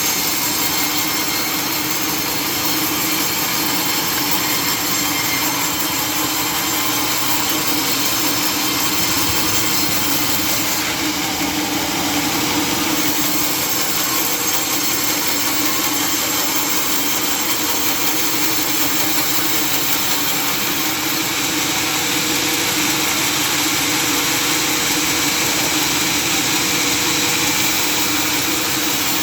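Sawmill saw running steadily while cutting a mahogany log, an even mechanical noise that holds at one level.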